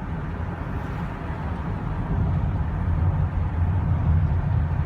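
Road and engine noise inside a 2013 Honda Odyssey minivan's cabin while driving, a steady low rumble that grows louder about two seconds in.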